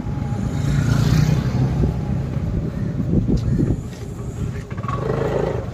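Motor scooter's small petrol engine running as it is ridden slowly, heard from a helmet chin-mounted phone, with a steady low rumble of engine and road noise.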